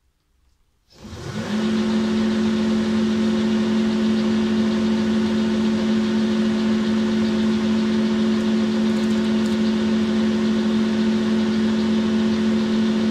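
Boxford centre lathe switched on about a second in, its motor and spindle rising quickly in pitch up to speed, then running steadily at an even pitch.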